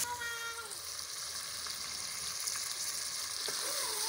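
Chicken pieces sizzling and frying in hot ghee in an aluminium pot, a steady hiss with faint clicks from a steel ladle stirring them. This is the browning stage, just after the raw chicken went in.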